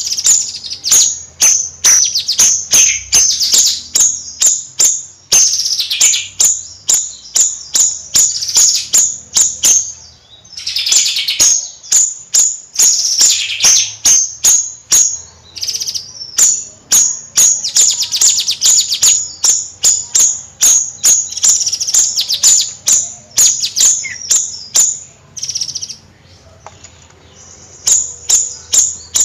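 Bayeman (siri-siri) songbird singing in its 'nyrecet' style: long runs of rapid, sharp, high-pitched chips and trills. There are short pauses about ten seconds in, about fifteen seconds in, and again near the end.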